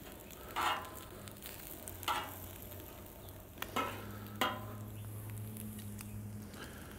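Thick-cut bacon sizzling in its grease on a Cuisinart 360 gas griddle, with four short scrapes and clacks of metal tongs on the griddle top as the bacon is turned and the bagel halves are lifted.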